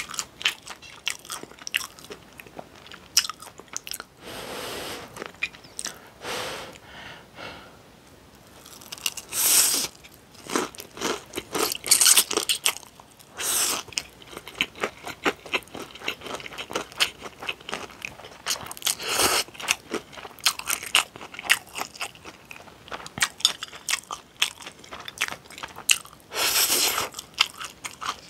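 Close-miked eating sounds of Buldak spicy stir-fried noodles: several slurps of noodles with wet chewing and mouth clicks in between.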